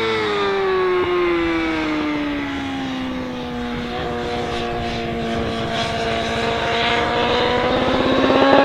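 BMW superbike's inline-four engine: its note falls steadily over the first few seconds as the bike slows into a corner, holds low, then rises and grows louder as it pulls out of the corner near the end.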